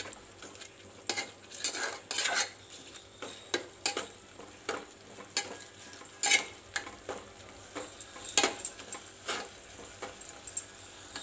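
A metal spoon stirring egg masala in a metal pot, with irregular clinks and scrapes against the pot's sides over a soft sizzle from the cooking masala.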